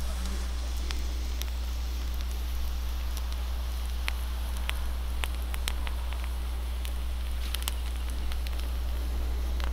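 Wood campfire crackling, with scattered sharp pops at irregular intervals over a steady low hum.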